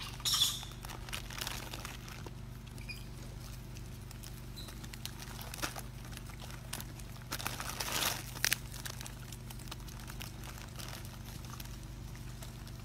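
Macaques rummaging in a pile of bananas and plastic-wrapped food packets: short bursts of plastic crinkling and rustling, loudest just after the start and again about seven to eight seconds in, over a steady low hum.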